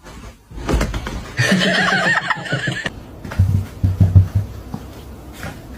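An animal's drawn-out, wavering cry lasting about a second and a half, after a few knocks, followed by several short low-pitched sounds.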